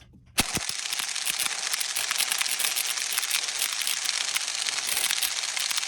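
Impact wrench hammering on a stuck bolt that will not break loose. It starts suddenly about half a second in and runs as a dense, rapid rattle.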